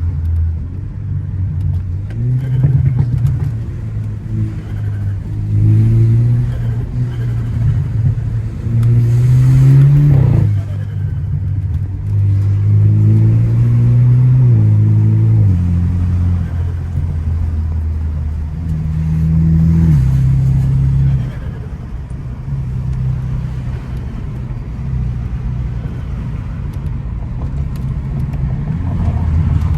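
Car engine accelerating hard through the gears, its pitch climbing and then falling at each upshift, several times. A short hiss about ten seconds in comes just as one upshift lands.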